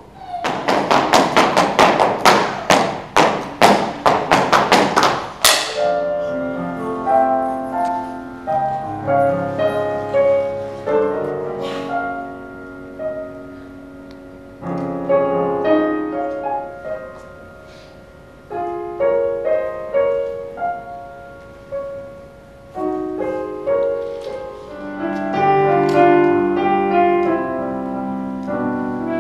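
Live piano and flute music. It opens with a burst of rapid, loud strikes that speed up and end on a final hit, then the piano and flute play a slow melody of held and fading notes.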